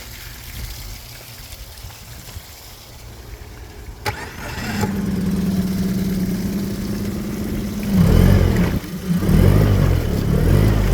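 Mercury 90 hp two-stroke outboard being started on water muffs. There is a click about four seconds in, then a steady starter whine for about three seconds, then the engine catches and runs loud and uneven.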